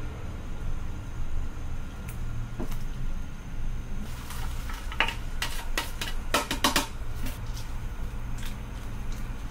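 A pot of soup broth boiling on the burner with a steady low rumble; about halfway in, a quick run of clacks and knocks as a ladle works against the pot.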